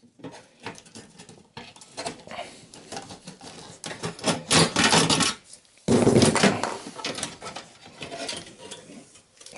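Gloved hands handling a desktop computer's motherboard and sheet-metal chassis parts: irregular scraping, rubbing and clicking of metal and circuit board, loudest about halfway through and again just after a brief lull.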